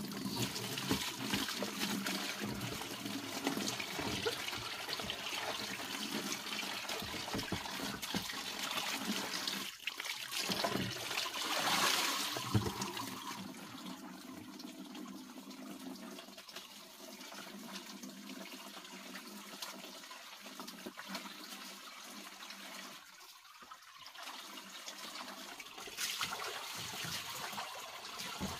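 Water running from a pipe into a plastic basin and splashing off it. The flow sounds louder for the first dozen seconds, quieter through the middle, and picks up again near the end.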